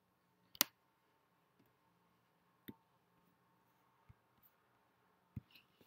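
Four scattered sharp clicks from operating a computer, the loudest about half a second in, over faint steady room hum.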